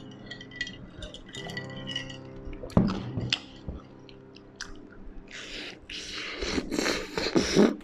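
Biting into and chewing crispy crumbed fried chicken, with a sharp crunch about three seconds in and a run of loud crunching chews in the last few seconds.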